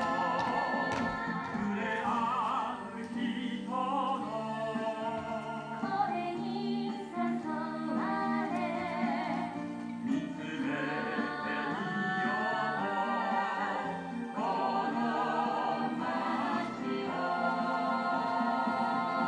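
Sung civic anthem: a choir-style vocal with vibrato over orchestral accompaniment.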